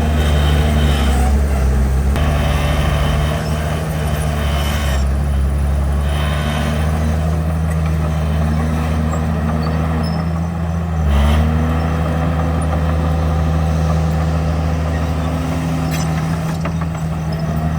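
Heavy diesel engine of earthmoving machinery running steadily under load. A little after ten seconds its speed sags and then recovers. Higher-pitched noise comes and goes over the engine sound.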